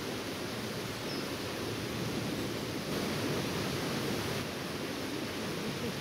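Steady rushing of a river flowing over rocky rapids.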